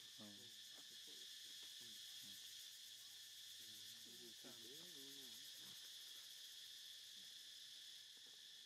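Faint, steady high-pitched chirring of insects such as crickets. A couple of brief faint voice-like calls come just after the start and again around the middle.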